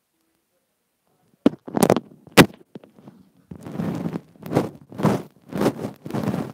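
Tongue licking and mouthing right against the inline microphone of wired earbuds. A few sharp clicks and pops come first as it touches the lips, then wet licking strokes about twice a second, very close and loud.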